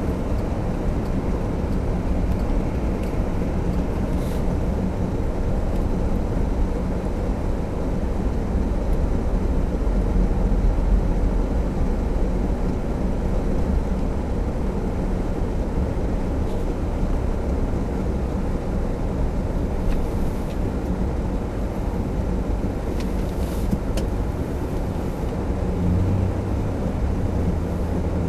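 Car driving on the road, heard from inside the cabin: a steady low rumble of engine and road noise. A deeper hum strengthens near the end.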